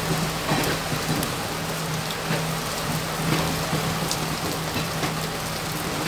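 Steady rush and splash of water as a train runs through floodwater over the track, heard from an open carriage doorway, with scattered sharp splashes and a steady low hum underneath.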